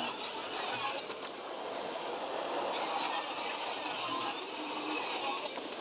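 Jobsite table saw running and ripping a long thin panel into strips: a steady motor and blade noise with a hissy cutting sound on top. The hiss drops away for under two seconds about a second in, then comes back.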